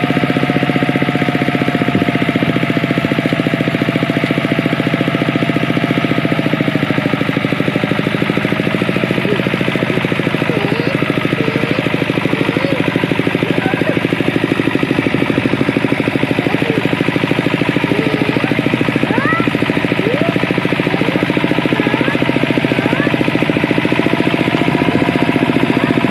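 Walk-behind tractor engine running steadily while its rotary tiller works the soil, a fast even chugging. Short rising chirps come through over it from about ten seconds in.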